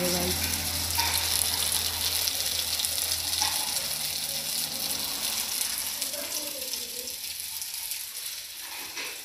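Hot oil sizzling steadily in a kadai as a puri deep-fries.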